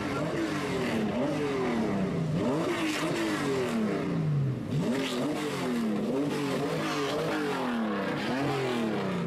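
Engine of a lowered 1970s Nissan Skyline (C110 'Kenmeri', badged Datsun GT-R) being blipped over and over as the car creeps along, each rev rising sharply and falling away, about once a second.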